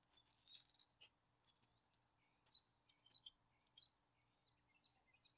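Near silence in a small room, with a brief rustle about half a second in and scattered faint high chirps and small ticks.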